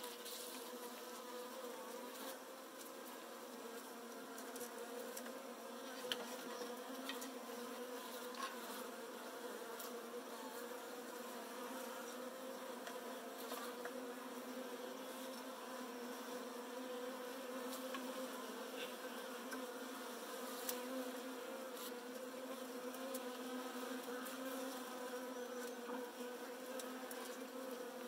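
A package of Saskatraz honeybees buzzing: a steady, even hum with a low drone and a higher overtone above it. A few faint clicks stand out here and there.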